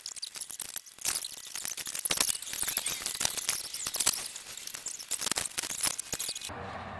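Rapid, irregular clicking and rattling of plastic and metal parts being handled at the truck's grille and headlight housings, stopping abruptly about six and a half seconds in. A steady engine hum follows.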